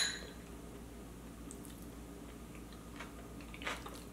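A metal spoon clinks sharply once against a ceramic plate, then quiet chewing with a few faint spoon clicks near the end.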